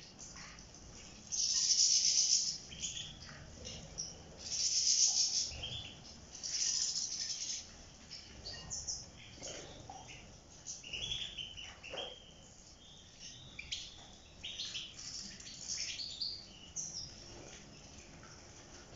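A flock of European goldfinches bathing in shallow water bowls: three loud bursts of wing-splashing in water in the first eight seconds, then many short, scattered chirps and calls.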